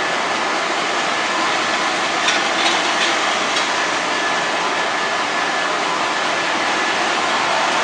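Steady machine noise from a running glass roller-coating and UV curing line: an even rushing sound with a faint steady whine. A few light knocks come about two to three and a half seconds in.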